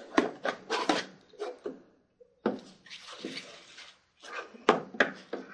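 Small plastic accessories, a camcorder charger among them, being handled: a run of sharp clicks and knocks, a brief rustle near the middle, then more clicks.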